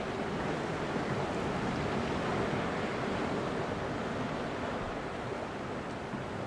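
Calm ocean waves washing onto the shore, a steady wash of surf with a gentle swell in the middle.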